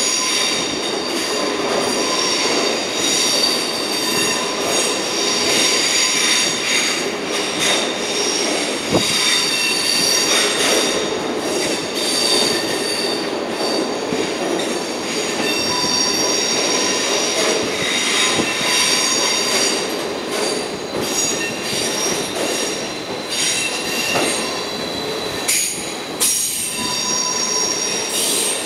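Wheels of a slowly moving SBB double-deck passenger train squealing, several high steady tones that waver and come and go over a low rolling rumble.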